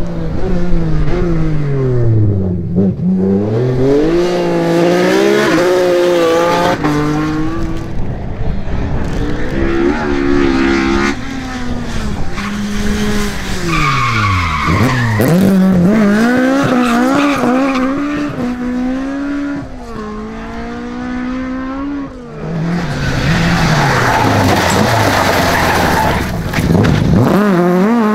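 Rally cars at full attack, among them classic Ford Escort Mk2s: engines revving hard, the pitch climbing and dropping again and again through gear changes and lifts, over several passes. Tyres skid on a loose, gravelly corner.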